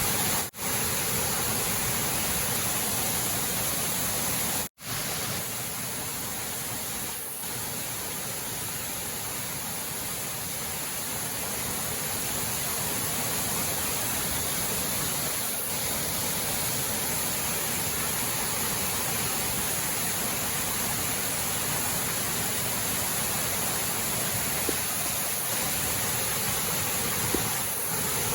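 Steady rushing noise of a waterfall's falling water, cut off briefly twice near the start.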